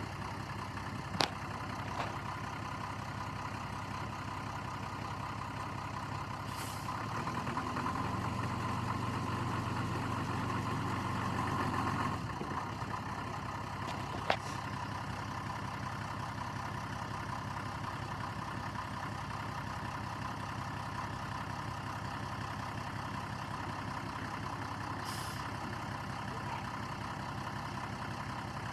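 A heavy engine running steadily. It grows louder and deeper for about five seconds in the middle, then settles back, and a few sharp clicks or knocks are heard, two early on and one in the middle.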